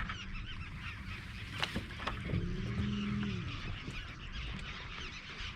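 A large flock of birds calling all at once over a feeding school of fish, a dense overlapping chatter of short calls. A brief low hum rises and fades about two and a half seconds in.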